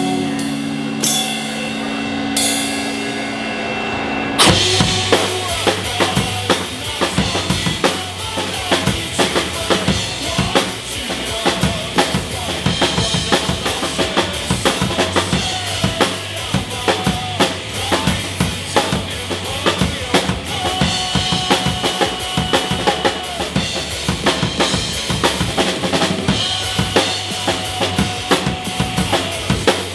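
Drum kit played along with recorded rock music. For the first four seconds or so there are held chords with a few cymbal hits that ring on, then the full kit comes in with a fast, busy beat of kick drum, snare and cymbals.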